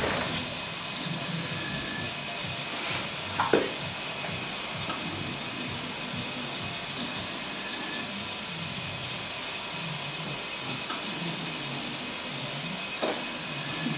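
Steady high-pitched hiss of operating-theatre background noise, with a few faint clicks.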